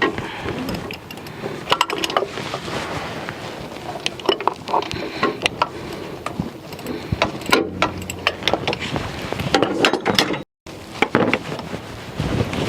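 Hand tools working on the power steering pump's mounting bolts: irregular ratchet clicks and metal knocks. The sound cuts out completely for a moment about ten seconds in.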